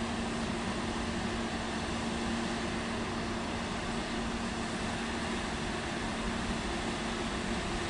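MRCE E.191 electric locomotive (a Siemens Vectron) humming steadily, a constant fan-like rush with a low two-note hum underneath.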